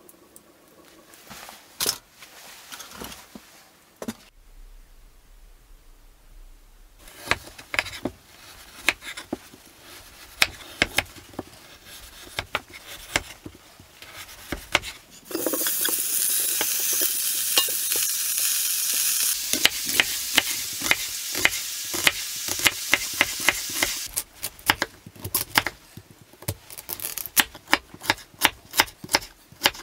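Knife cutting raw meat into chunks on a wooden board, a run of separate clicks. About halfway through, meat sizzles as it fries in a metal pan for several seconds; this is the loudest part. Then come quick, even knife chops slicing carrots on the board.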